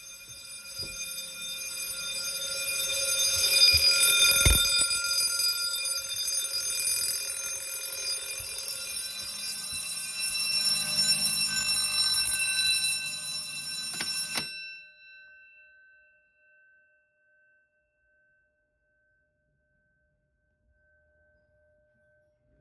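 Electric fire alarm bells, including an Edwards 439D-6AWC vibrating bell, ringing continuously during a fire alarm system test. One sharp knock cuts through about four and a half seconds in. The ringing cuts off suddenly about fourteen seconds in and dies away to silence.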